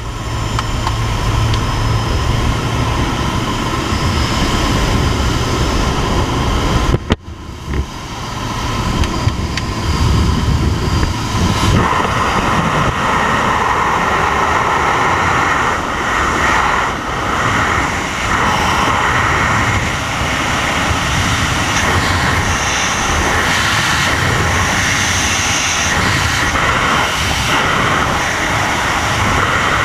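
Jump plane's engine and rushing air through the open door, heard on a helmet camera; about seven seconds in the sound drops out briefly as the skydiver exits, then steady freefall wind rushes over the camera, building up and staying loud.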